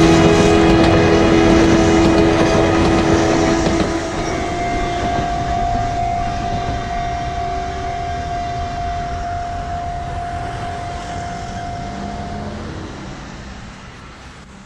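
Enoshima Electric Railway (Enoden) train running past, with a steady whine held for several seconds. The sound slowly falls away and fades out at the end.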